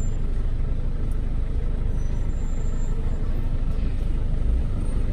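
Steady low rumble of street traffic: car and truck engines running, with no single event standing out.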